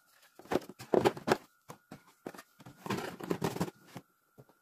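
Packaging being handled by hand, in a string of irregular short rustles and crinkles with brief pauses between them.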